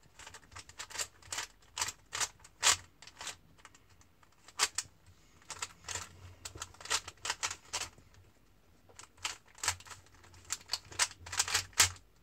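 Plastic 3x3 Rubik's cube being turned by hand: irregular clicking and clacking of the layers rotating, in quick runs with short pauses between.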